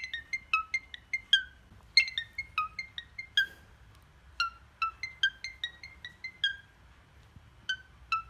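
iPhone ringtone melody: phrases of quick, ringing, plucked-sounding notes at about five a second, each phrase followed by a short gap before it repeats.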